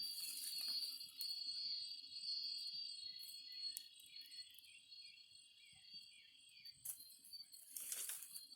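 Steady high-pitched chirring of insects, with a run of short repeated chirps in the middle. A few sharp clicks and a brief louder rustle come about eight seconds in.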